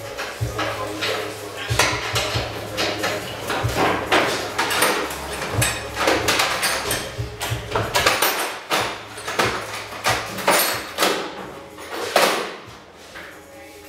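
Irregular metallic knocks and clatter of hand tools being handled against the bare sheet metal of a Ford F100 truck cab, easing off near the end.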